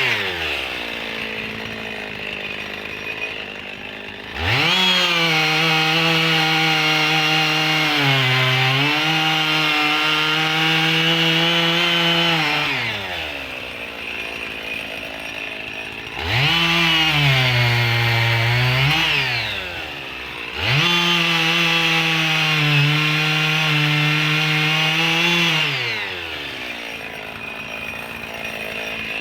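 Husqvarna 55 two-stroke chainsaw cutting thick logs: it falls to idle, then is throttled up three times, at about four, sixteen and twenty seconds in, each time held at high revs for several seconds, with the pitch sagging as the chain bites into the wood, before dropping back to idle.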